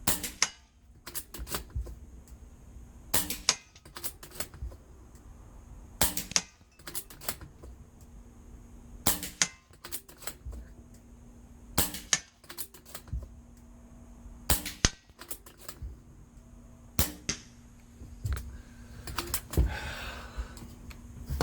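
Air rifle fired repeatedly, a group of sharp cracks and clicks about every three seconds: the shot and the pellet striking a cheap toy xylophone target. The hits give a flat whack that sounds the same every time rather than a musical note.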